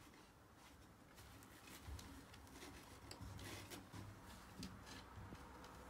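Near silence with faint, scattered soft taps and scrabbles: a kitten's paws and claws on wooden railing slats as she squeezes between them.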